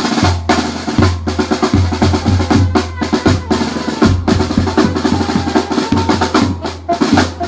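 Tamborazo band music driven by drums: a bass drum thumping a steady beat under fast snare strokes, with a few held tones above.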